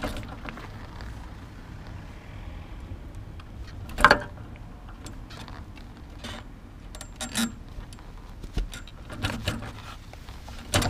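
Clinks, rattles and knocks of a fabric-and-aluminium bicycle dog trailer as an Afghan hound climbs into it. There is one sharp knock about four seconds in, then a run of lighter clicks as the dog settles.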